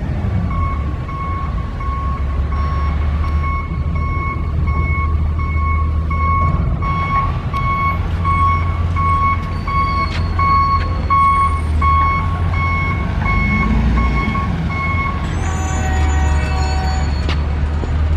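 Vehicle backup alarm beeping steadily, about two and a half beeps a second, over a low steady rumble. The beeping stops about fifteen seconds in and is followed by a brief spell of several higher tones.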